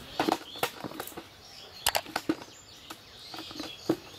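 Cast net being handled by hand on bare ground while fish are picked out of it: about ten sharp, irregular slaps and clicks from the net, its weights and the fish.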